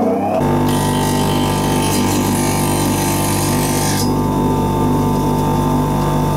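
Creusen dry bench grinder running at steady speed, with the steel of a chisel ground against its white wheel, a high hiss over the motor hum. The grinding stops about four seconds in as the chisel is lifted off, and the motor keeps running.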